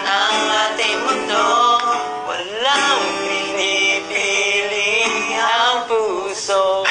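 Two men singing a slow Tagalog love song to acoustic guitar, with long held notes that slide up and down in pitch.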